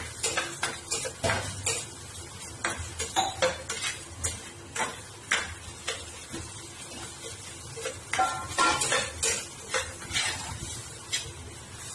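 Steel spatula scraping and clinking against a stainless-steel kadai as a masala paste is stirred and fried, in runs of quick irregular strokes with a short pause in the middle.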